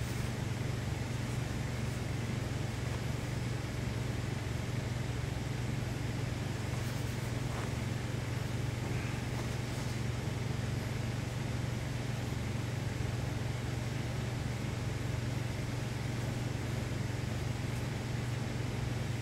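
A steady low hum that does not change, with no distinct knocks or other events over it.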